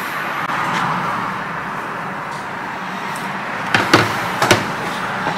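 Steady background hum and hiss, with three sharp clicks close together about four seconds in.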